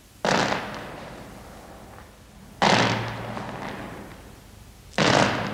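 Heavy chain crashing and clattering three times, about two and a half seconds apart, as a ghost skips rope with it down a staircase. Each crash comes in suddenly and rattles away over a second or two.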